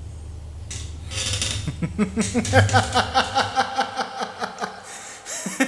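A steady run of mechanical ticking clicks, about three a second, each with a faint ringing tone, preceded by a short hiss just over a second in.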